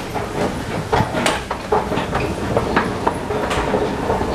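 Subway station escalator running: a steady low rumble with irregular clacks and knocks throughout.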